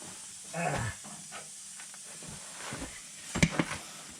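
Metal parts being handled in a workshop: a short scrape just under a second in, then a few sharp clicks and knocks about three and a half seconds in, over a steady hiss.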